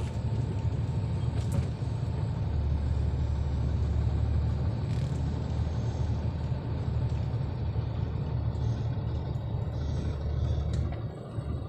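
Steady low rumble of a vehicle's engine and road noise, heard from inside its cabin as it drives slowly, with a few faint clicks and rattles. The rumble eases off near the end.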